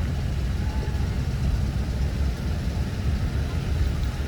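A motor idling with a steady low rumble.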